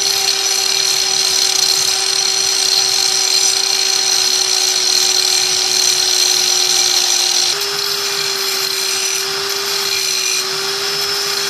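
Electric angle grinder grinding metal off a motorcycle's footpeg mounting bracket: a steady, high motor whine over a harsh grinding hiss. The pitch lifts slightly about two-thirds of the way through.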